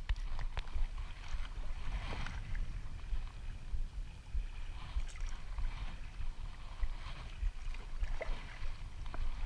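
Kayak out on a lake in strong wind: a steady low rumble of wind buffeting the microphone, with a few brief splashes of water.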